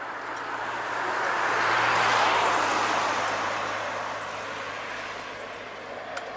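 A road vehicle driving past, its tyre and engine noise swelling to a peak about two seconds in and then fading away.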